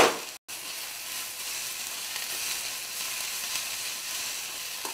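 Sliced onions sizzling in a little oil in an iron kadai while a metal spatula stirs them round the pan. The sizzle is steady, broken by a brief moment of silence just under half a second in.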